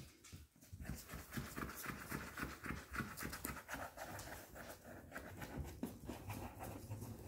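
A Yorkie puppy panting in quick, rhythmic breaths, strongest for a few seconds starting about a second in, then fading.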